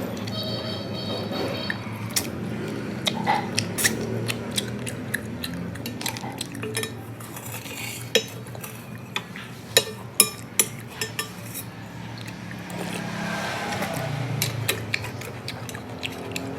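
Eating utensils clinking and scraping against a bowl of noodle soup: scattered sharp clinks, busiest in the middle, over a steady low rumble.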